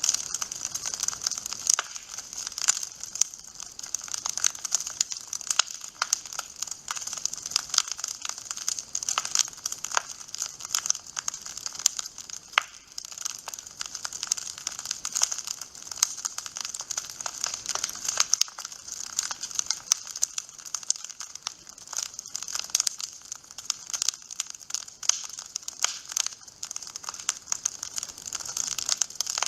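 Wood fire crackling in a fireplace: a steady hiss with dense, irregular snaps and pops, a few of them sharper and louder.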